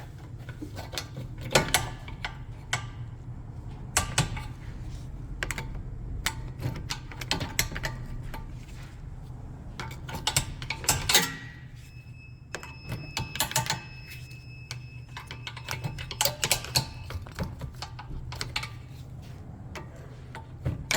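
Metal hand tools clicking and knocking against a car's brake caliper as it is unbolted, in many irregular small strikes, over a steady low hum.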